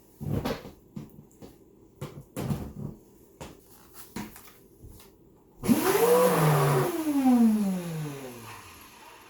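A few knocks and clicks from handling the plastic housing, then the Kenmore canister vacuum's motor switches on with a rush of air, its whine climbing quickly and then sinking steadily over about three seconds as the motor winds down. It is a test run of the motor after cleaning.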